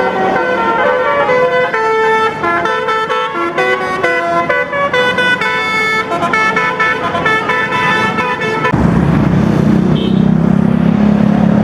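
Bus 'telolet basuri' multi-tone horn playing a quick melody of distinct pitched notes. About nine seconds in it cuts off suddenly, giving way to a loud, low, steady rumble.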